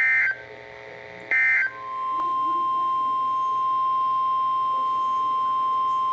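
Short, loud bursts of EAS/SAME digital data tones, about 1.4 s apart: the end-of-message code that closes a weather radio alert. They are followed, just under two seconds in, by the steady single-pitch 1050 Hz warning alarm tone of NOAA Weather Radio, which signals a new warning.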